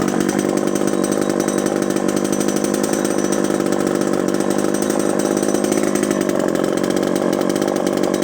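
Vintage Homelite XL Automatic two-stroke chainsaw running steadily and loudly, at an even engine speed.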